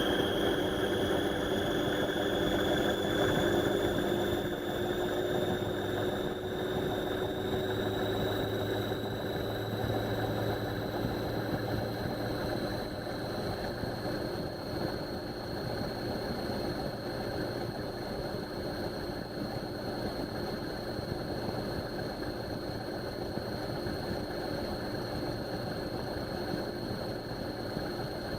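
Indesit washing machine spinning up: a high motor whine rises steadily in pitch for about the first fourteen seconds, then holds steady as the drum reaches speed, over a dense rumble.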